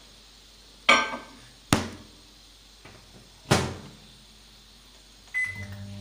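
Samsung microwave oven: three sharp clunks as the door is opened, the glass bowl set in and the door shut. Then a short keypad beep about five seconds in, and the oven starts running with a steady low hum.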